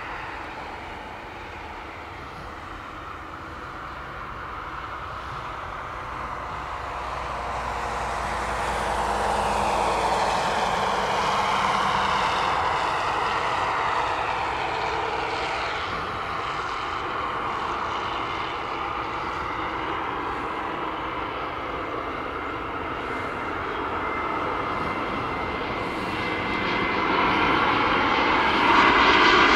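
Airbus A320neo's CFM LEAP-1A turbofan engines on final approach: a steady jet rush and whine that grows louder as the airliner nears, with whining tones sliding slowly down in pitch, and loudest near the end as it comes in low over the runway.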